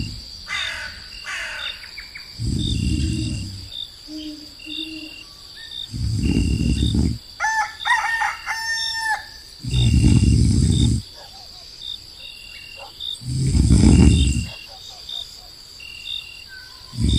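Cartoon snoring sound effect, a loud snore about every three and a half seconds, over steady cricket chirping, with a rooster crowing once about eight seconds in.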